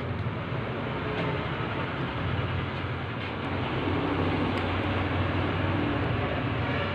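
Steady low hum and hiss of background noise, with a few faint clicks as parts of a copier fixing unit are handled and fitted.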